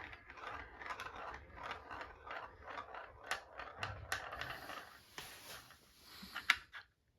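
Marbles rolling and clicking along a marble-run track: a rapid, irregular patter of small clicks that thins to a few scattered clicks after about five seconds.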